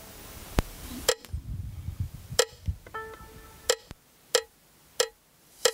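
Sharp woody clicks at a steady beat, about one every two-thirds of a second, with a brief low note around three seconds in.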